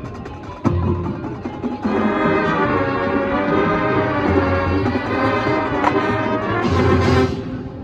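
High school marching band playing: a low drum hit about a second in, then the brass and winds hold a sustained chord, and the whole band strikes a loud accented hit near the end.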